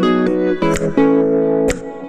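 Background music: an instrumental track of held pitched notes with a sharp beat about once a second.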